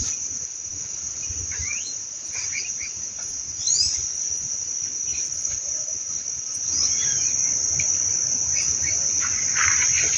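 Insects trilling in one steady, high, unbroken note, with scattered bird chirps and short whistles over it, one of them a quick rising sweep about a third of the way in.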